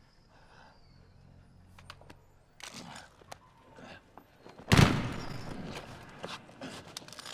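Film sound effects in the aftermath of an overturned truck: scattered small knocks and clinks, then a single loud, heavy impact about three-quarters of the way in that dies away in a long rumble, followed by more faint knocks.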